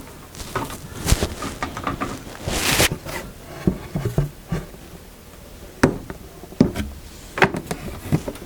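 Wooden knocks and clatter of sawn boards being handled: a series of separate irregular knocks with a short scrape or rustle about two and a half seconds in.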